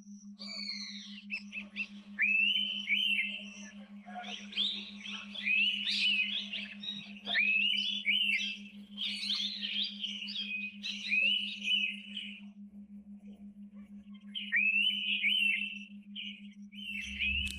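Birds calling with quick whistled notes, each sweeping sharply up and then holding, in dense overlapping runs that pause about twelve seconds in and start again near the end. A steady low hum runs underneath.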